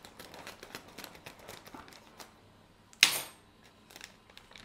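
Scissors snipping the top off a plastic microwave rice pouch: a run of quick small clicks, then a single loud sharp clack about three seconds in.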